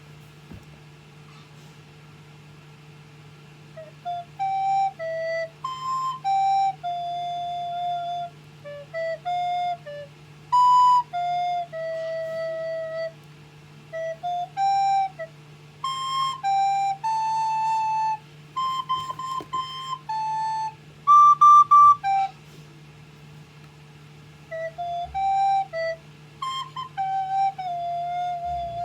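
A child playing a simple melody on a recorder, one note at a time in short phrases with brief pauses between them, starting a few seconds in. A steady low hum runs underneath.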